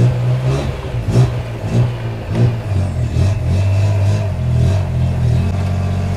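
Thai tuk-tuk's engine running and being revved, its pitch rising and falling in short pulses roughly every half second.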